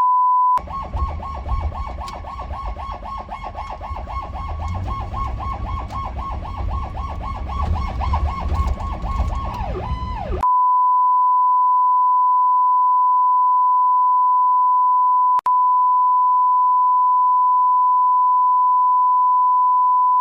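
A steady, high, pure beep tone runs throughout. For the first half it sits over a fast-warbling electronic emergency siren and low vehicle road noise. About ten seconds in, the siren and road noise drop out and only the plain beep remains.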